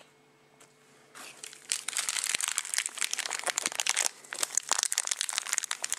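Thin clear plastic bag around a small toy figure crinkling as fingers handle and turn it. The dense crackling starts about a second in and breaks off briefly near two-thirds of the way through.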